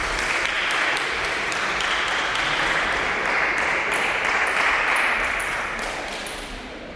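Spectators clapping and applauding a point in a table tennis match. The applause holds steady, then dies away over the last second or so.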